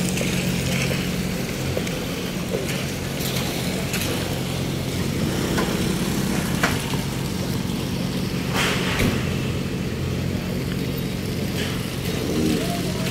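A motor engine running steadily with a low hum, with scattered knocks and clanks over it.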